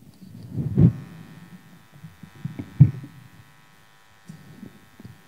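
Low thumps of handheld microphones being handled over a PA system, the two loudest about one and three seconds in, with a steady electrical buzz from the sound system setting in about a second in.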